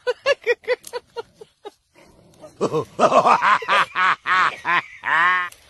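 Dogs barking excitedly as they leap at a branch: a quick run of short high yaps, then after a brief pause a louder string of barks ending in a longer, falling cry.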